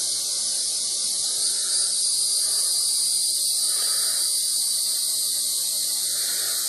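Steady high-pitched hiss with no change in level, and faint soft rubbing sounds now and then beneath it.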